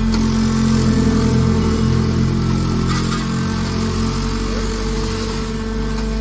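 Hydraulic car baler running under load: a loud, steady, deep mechanical drone, louder than the machine's plain hum just before and after.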